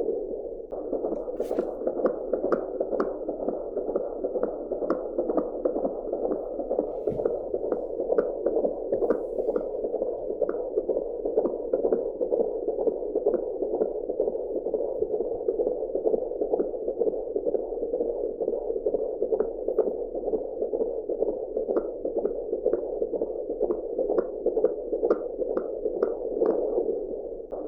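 Fetal heartbeat heard through an AngelSounds home fetal Doppler: a fast, even pulse of about two to three beats a second over a steady Doppler hiss.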